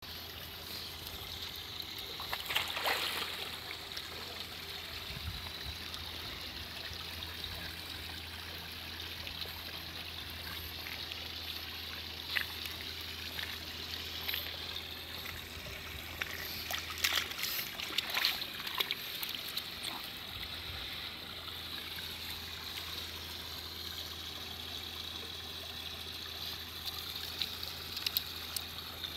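Water lapping and trickling around a swimming pug, with a few brief splashes from its paddling. Near the end, water sprays off the wet dog as it shakes itself.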